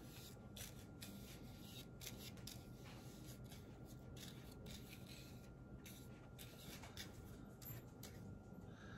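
Near silence with faint, scattered rustles and light clicks of cardstock being handled and folded.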